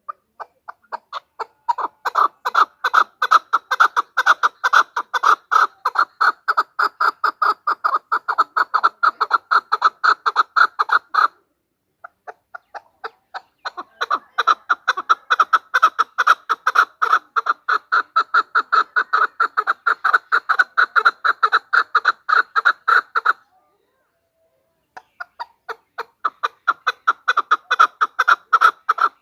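Female chukar partridge calling: a rapid string of short, repeated chuck notes, several a second, in long bouts that break off twice for a second or two before starting again.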